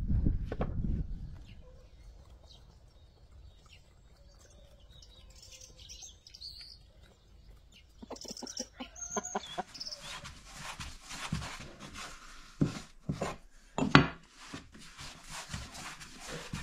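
Hens clucking, with small birds chirping faintly. A heavy axe blow on firewood opens it, and a sharp knock stands out near the end.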